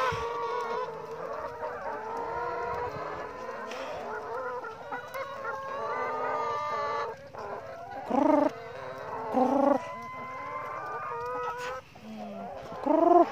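A large flock of brown egg-laying hens clucking and calling, with many overlapping drawn-out calls. Three louder short calls stand out in the second half, the last near the end.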